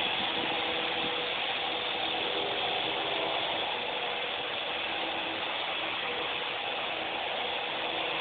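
Small radio-controlled toy helicopter's electric motor and rotor blades whirring steadily in flight.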